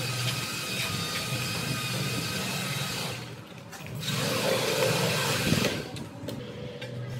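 Steel trowel scraping and spreading tile adhesive mortar on a concrete floor, over a steady mechanical hum. The sound dips briefly about halfway through, then comes back louder for a couple of seconds.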